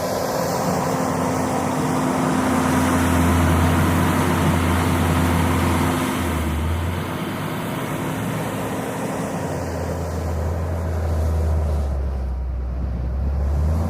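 JCB 426ZX wheel loader's diesel engine running under working load, a steady low drone whose loudness swells and eases a little as the machine works.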